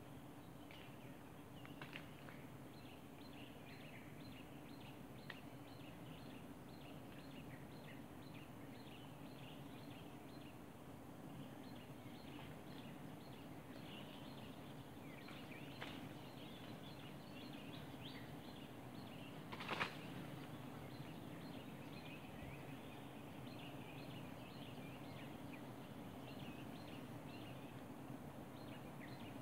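Faint forest ambience: many short, high bird chirps scattered throughout over a steady low hum, with one sharp click about two-thirds of the way through.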